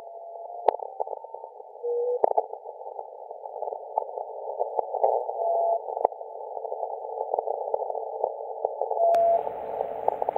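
VLF radio reception played as audio: a narrow band of hiss crackling with sharp clicks from lightning sferics, broken by short steady beeps at a few different pitches from the Russian RSDN-20 (Alpha) navigation transmitters. About nine seconds in, a wider outdoor hiss comes in underneath.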